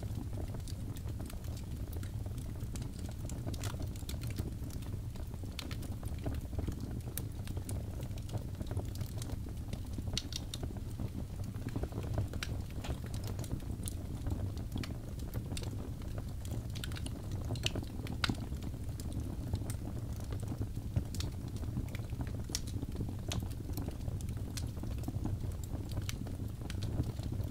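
Wood fire burning in a fireplace, crackling with scattered sharp pops over a steady low rumble of the flames.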